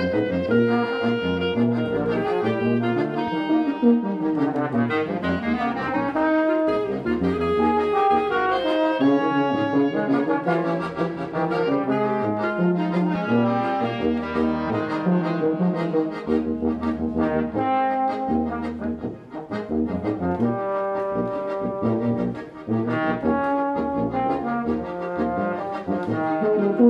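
A small ensemble of tuba, trombone, piano accordion and clarinet playing a tune together, the brass leading, with a brief drop in loudness about two-thirds of the way through.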